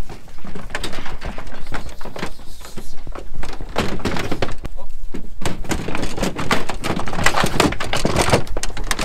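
Many sheep hooves clattering and thudding on the ridged metal ramp and deck of a livestock trailer as a flock of lambs crowds aboard, a dense, irregular run of knocks.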